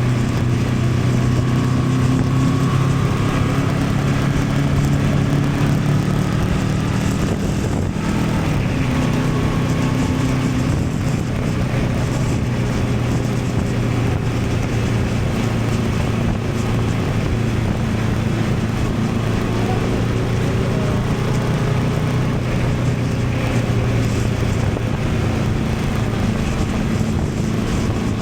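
Honda Transalp 750's parallel-twin engine running at a steady cruise, under wind and road noise on an action camera's built-in microphone. About eight seconds in the engine note drops and shifts, then settles again.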